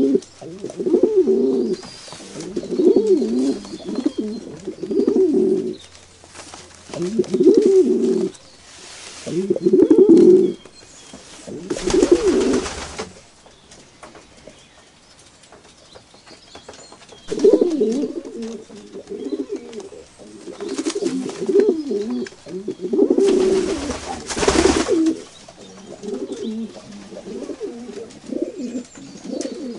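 Pigeons cooing in repeated low, rolling phrases, with a pause partway through. Two short bursts of rustling noise break in, about twelve seconds in and again near twenty-four seconds.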